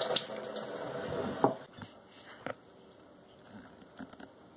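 Water spraying from a kitchen faucet's pull-out spray head onto a face. It stops about a second and a half in, followed by a few faint knocks.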